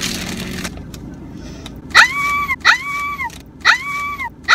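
A short rustle of plastic packaging being torn open. Then, starting about two seconds in, a whistle-like note sounds four times, roughly once a second; each note sweeps quickly up into a held pitch and drops off at its end.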